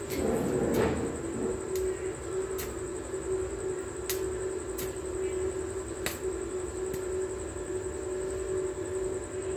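Sharp separate taps, roughly one a second and louder in the first second, from work on a hollow clay brick wall, over a steady hum.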